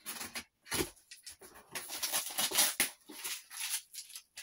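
A knife slitting the packing tape on a cardboard shipping box, then the cardboard flaps being pulled open: scraping and rustling in ragged bursts, loudest about halfway through.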